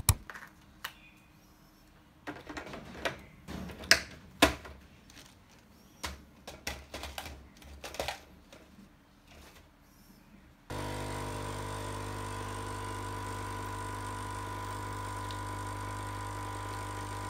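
Clicks and knocks as a capsule is loaded into the holder of a Krups Dolce Gusto capsule coffee machine and a glass is set on its drip tray. About eleven seconds in, the machine's pump starts suddenly with a steady buzzing hum as it dispenses milk into the glass.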